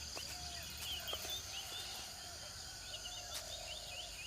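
Natural outdoor ambience of many small birds giving short, quick chirps over a steady high insect hum, with a few lower, short calls here and there.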